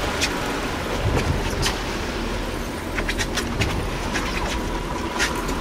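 Fishing boat's outboard motor running under way, with wind and water noise, and a few sharp clicks scattered through.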